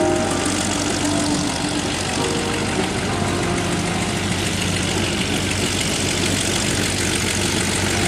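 Radial engine of a Stearman biplane idling as the plane taxis, a steady low running sound with propeller noise.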